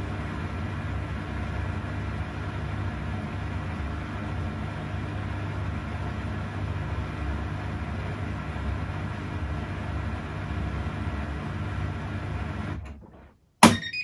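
Bosch Series 6 i-Dos washing machine running at the end of its quick-wash cycle, a steady mechanical hum that dies away about 13 seconds in. A sharp click follows, then the start of an electronic beep at the very end.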